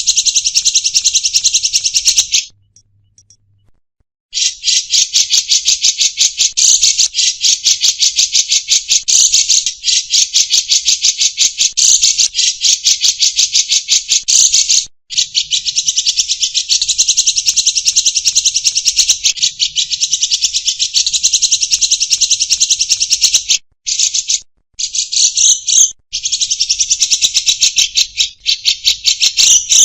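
Caged songbirds singing hard and without pause, a loud, fast, buzzing trill that sounds almost insect-like, breaking off briefly a few times. This nonstop singing is what bird keepers call 'gacor'.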